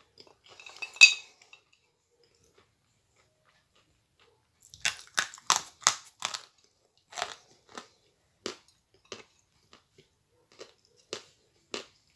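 A short, loud crackle about a second in. From about five seconds a run of crisp crunches follows as a piece of edible chalk is bitten and chewed, close together at first, then spacing out.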